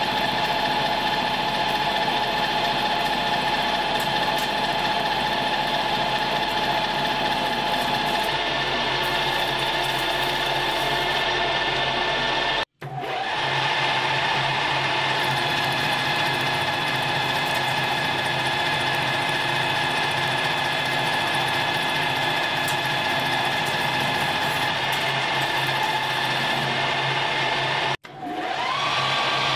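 Paulimot PM4000 metal lathe running, its motor and drive giving a steady whine. The sound breaks off suddenly twice, and after the second break the whine rises in pitch as the machine speeds up.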